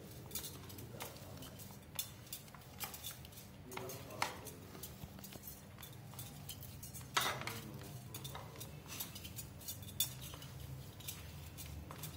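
Scattered light clinks and taps as a hand kneads and mixes mashed potato in a plate, the bangles on the wrist knocking together and against the plate, with a few sharper clicks now and then.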